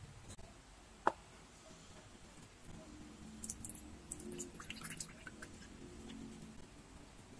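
A single sharp knock about a second in, then soy sauce poured into a ceramic bowl: a few seconds of faint liquid pouring with small splashes and clicks.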